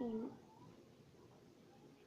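A brief vocal sound right at the start, falling in pitch, lasting about a third of a second.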